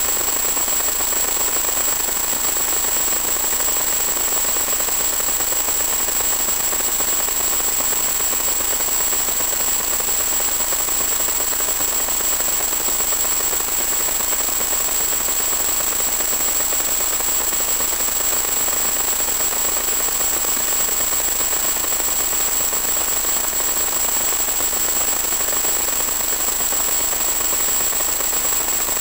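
Steady loud hiss with one constant high-pitched whine: the audio channel of an analog 1.2 GHz FPV video link, carrying static.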